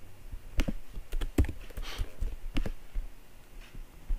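Computer keyboard and mouse clicks, about seven separate clicks spaced unevenly.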